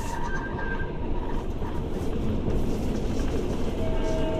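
Passenger train running on the rails, heard from inside the carriage: a steady low rumble of wheels on track. A faint thin whine comes in briefly at the start and again near the end.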